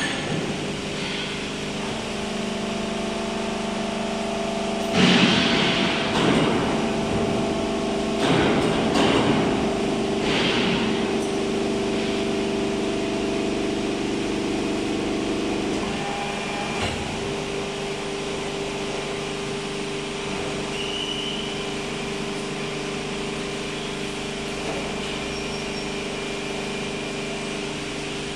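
Hydraulic drive of a 1600-ton steel wire rope pressing machine running with a steady hum, with bursts of hiss between about five and eleven seconds in as the press works under pressure. About seventeen seconds in there is a click and the hum changes pitch as the press switches over, and the dies open.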